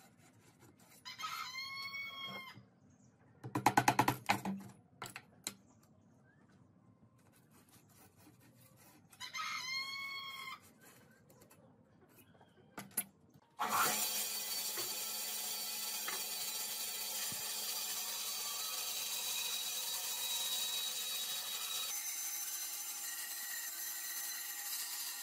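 A rooster crows twice, about a second in and again about nine seconds in. Between the crows comes a quick burst of sharp knocks, the loudest sound. From about fourteen seconds in a band saw runs steadily, its sound changing at about twenty-two seconds.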